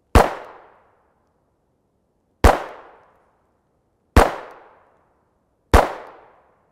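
Four single shots from a Browning Buck Mark .22 LR semi-automatic pistol, fired one at a time about one and a half to two seconds apart. Each is a sharp crack with a short echo fading over about half a second.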